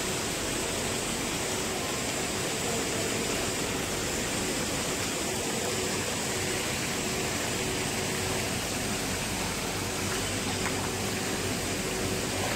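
Steady, even rush of running water, with no single event standing out.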